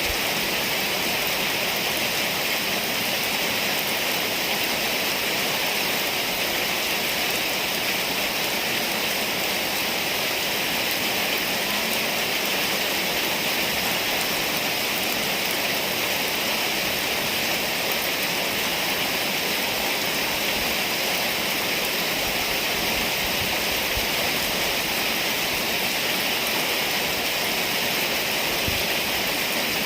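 Rainstorm: rain falling steadily, a continuous even hiss that neither builds nor breaks.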